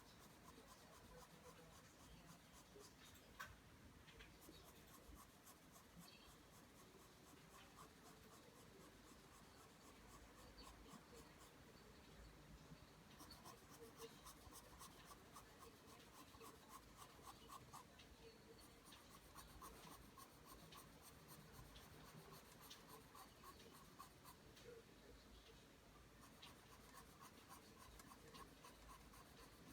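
Pencil scratching across paper as it draws line after line, a faint, steady run of quick short strokes.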